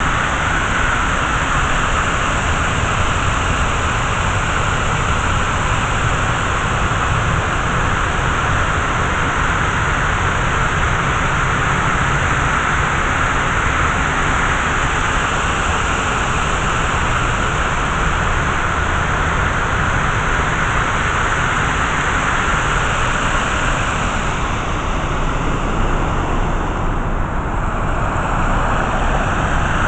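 Man-made waterfall fountain running: a steady sound of falling water.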